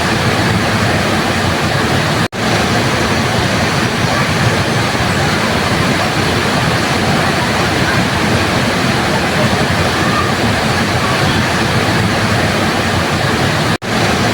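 Waterfall rushing in a steady, loud roar of falling water. The sound cuts out for an instant twice, about two seconds in and near the end.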